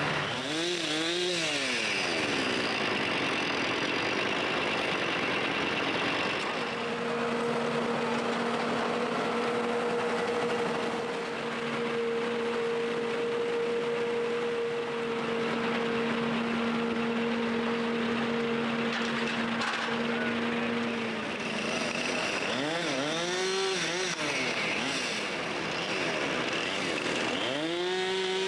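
Chainsaws cutting downed tree limbs, revving up and down in short sweeps near the start, again later on, and at the end. Through the middle an engine holds one steady high note for about fifteen seconds.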